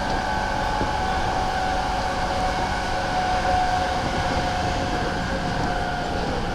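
E217-series electric train running at speed, heard from inside the MoHa E216 motor car: a continuous rumble of wheels on rail with a steady high whine over it.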